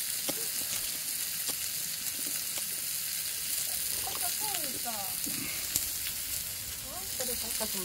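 Pork neck and belly sizzling on a hot stone griddle: a steady hiss of frying fat, with faint voices in the background about halfway through.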